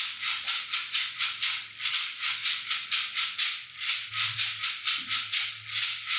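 Guasá, the Colombian Pacific bamboo tube rattle filled with seeds, shaken alone in the bunde rhythm: an even run of short, hissing shakes, about four to five a second.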